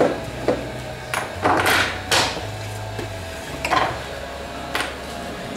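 A series of sharp wooden knocks and cracks from a wooden aircraft aileron being worked apart at its heat-softened T88 epoxy joints. The loudest two come close together about a second and a half to two seconds in.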